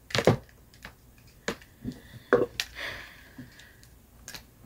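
Curling wand and its cord being handled and unwound: scattered sharp clicks and knocks, the loudest about a quarter-second in and again about two and a half seconds in.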